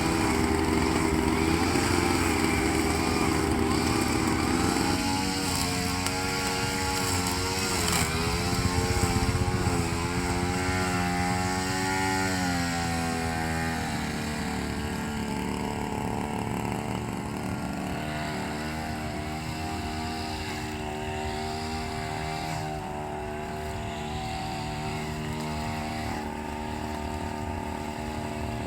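Brush-cutter (grass trimmer) engines running steadily. The engine pitch wavers up and down between about 5 and 14 seconds in, then holds steadier and a little quieter.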